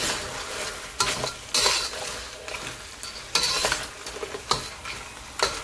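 Metal spatula scraping and stirring lobster pieces and green onion around a wok over a steady frying sizzle, with several louder scrapes against the pan.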